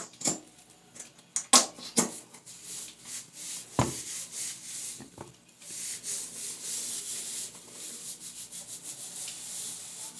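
Rubbing and scrubbing as conditioner is mixed in, with a few sharp knocks and clicks in the first four seconds. From about six seconds in the rubbing becomes steady and dense.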